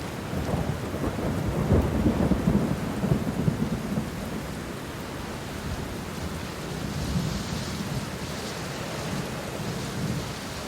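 Thunder rumbling over steady rain, the rumble loudest in the first few seconds and then settling into the even hiss of the rain.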